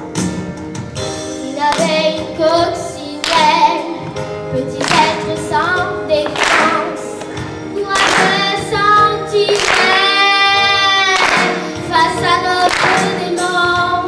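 Children singing a song from a stage musical into headset microphones over a recorded backing track, with one long held note about ten seconds in.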